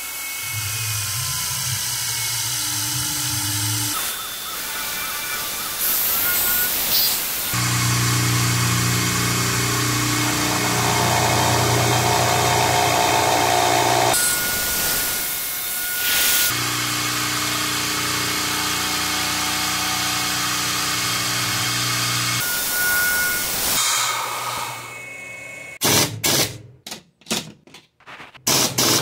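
CNC PM-30 milling machine's spindle running as an end mill cuts a round bore into an aluminium block: a steady machine whine with hiss, its tone and loudness shifting in steps as the cut changes. Near the end the running falls away and breaks into short choppy bursts.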